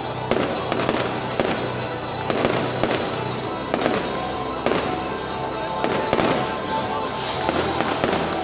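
Fireworks going off in a steady series of sharp bangs, about one a second, with music playing underneath.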